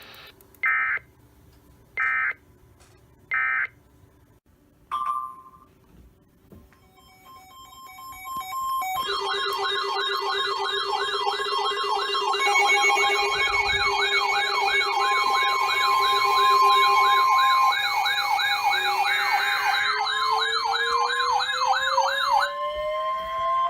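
Three short data bursts, the EAS end-of-message tones, close the preceding weather radio message. From about nine seconds, several electronic sirens sound together: fast warbling tones over steady ones. Near the end, another siren winds up in pitch.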